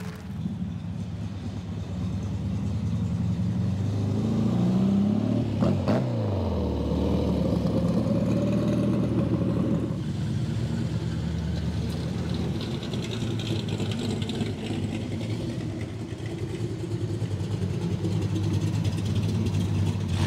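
Car engines running close by. About six seconds in, one car drives past and its engine pitch rises, then drops as it goes by. An engine keeps running steadily after that.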